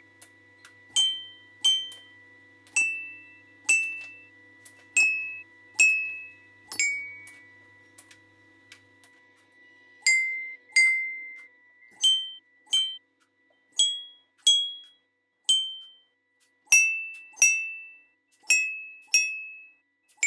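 A 7Bot desktop robot arm strikes single high ringing notes on a children's toy xylophone with coloured metal bars, using a ball-headed mallet. The notes come about one every half second to second, often the same note twice in a row, with a pause of about three seconds partway through.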